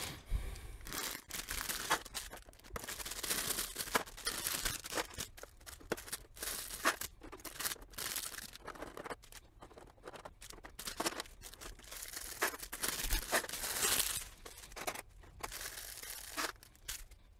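Thin clear plastic parts bags crinkling and being torn open by hand, in irregular stretches, with small clicks as loose plastic pieces are handled.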